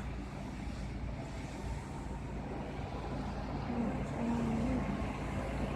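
Steady low vehicle rumble, like road and engine noise heard inside a car, with a faint short tone about four seconds in.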